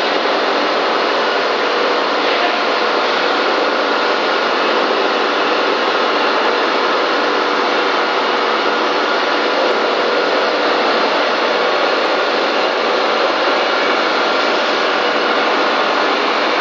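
Two-station abrasive emery-belt polishing machine running steadily, grinding metal square tubes and flat bars: a constant loud grinding hiss with a faint steady whine underneath.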